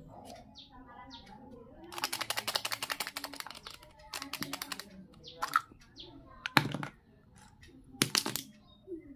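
Small plastic alphabet letters rattling in a plastic tub in a quick run of clicks, followed by a few separate sharp clacks of letters landing on the table.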